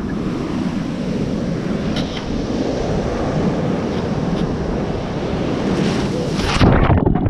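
Ocean surf breaking and washing up the beach, with wind buffeting the microphone. The sound changes abruptly near the end.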